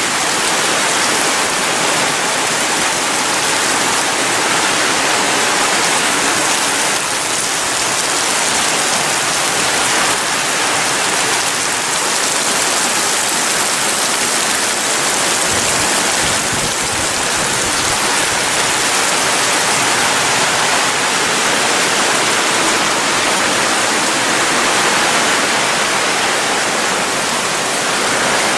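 Heavy tropical downpour: a dense, steady rain hiss, with a brief low rumble about halfway through.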